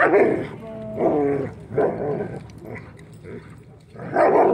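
Dogs play-fighting, German Shepherds wrestling with a husky-type dog. They growl and bark in short bursts, about four of them, with a lull around three seconds in before a loud burst near the end.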